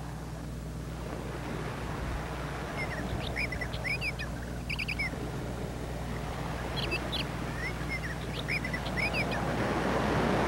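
Small birds chirping in short, quick repeated calls over a steady hiss and low hum, heard through a played-back phone voicemail.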